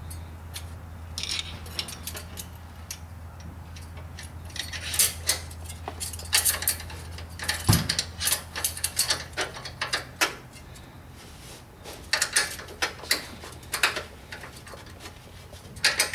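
Irregular metallic clicks and clinks of a wrench and screwdriver on a valve adjusting screw and lock nut of the Volkswagen Beetle's air-cooled engine, as the valve clearance is set with a feeler gauge.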